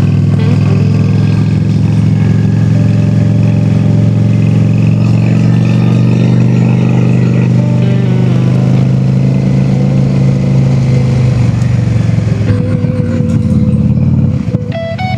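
Honda Shadow V-twin motorcycle engine running steadily with a deep, even note. The engine fades out about three-quarters of the way through and music comes in near the end.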